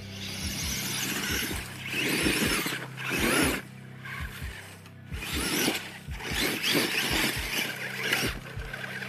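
Background music with a steady beat and bass. Over it come several loud squealing bursts of a second or less, from the electric-converted Traxxas T-Maxx monster truck's brushless motor and its tyres spinning on a dirt hill climb.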